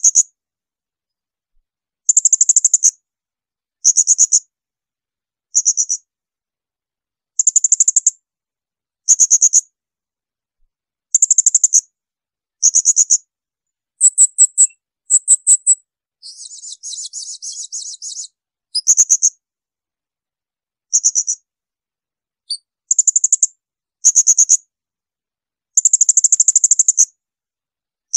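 Blue-crowned hanging parrot (serindit) giving shrill, very high-pitched rapid call bursts, each lasting under a second and repeated about every one to two seconds. A quieter, buzzier trill runs for about two seconds midway.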